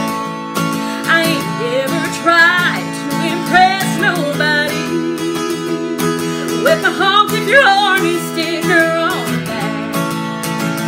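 A woman singing a country song while strumming an acoustic guitar, her held notes wavering.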